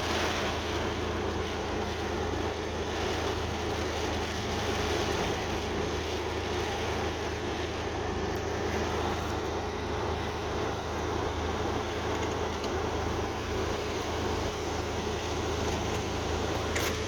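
Heavy rain pouring down steadily, a constant even hiss with a low hum underneath.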